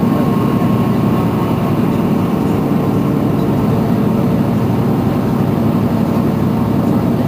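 Mercedes-Benz Citaro C2 city bus's engine idling steadily while the bus stands still.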